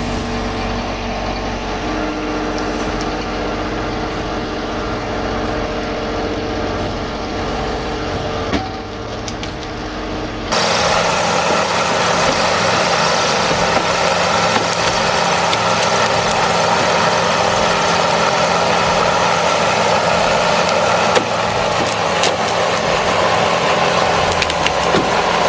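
Heavy forestry machinery running while it works through wood, with wood cracking and splintering. About ten seconds in, the sound cuts abruptly to a louder, harsher grinding noise with occasional sharp cracks.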